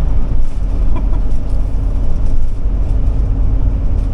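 Ford E-450 motorhome driving at highway speed: a steady low rumble of engine and road noise.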